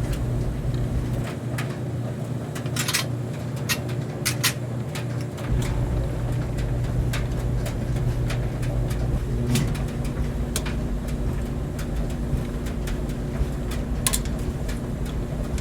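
Clothes dryer running with a steady low hum and rumble from the tumbling drum. Scattered sharp clicks and light knocks sound through it.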